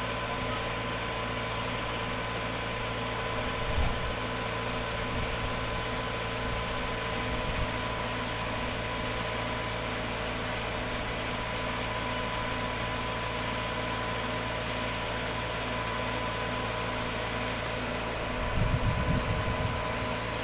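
An engine idling steadily, with a constant low hum and several steady tones. A brief low bump comes about four seconds in, and a louder low rumble near the end.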